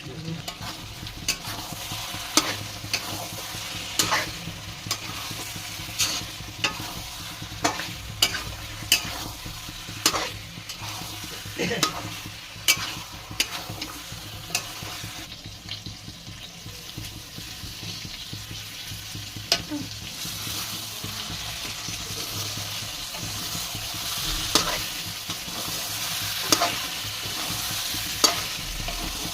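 Chicken curry masala frying and sizzling in a pan while a spatula is stirred through it, knocking and scraping against the pan about once a second in the first half. The sizzle grows louder toward the end, with fewer knocks.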